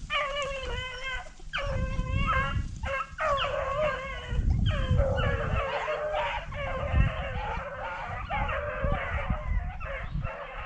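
Pack of rabbit hounds baying in long, overlapping drawn-out calls, one after another, as they run a rabbit's trail.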